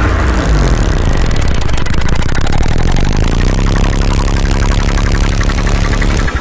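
Loud buzzing, rumbling anime sound effect that sounds like an engine, its pitch sliding down, climbing back up and then holding steady before cutting off at the end.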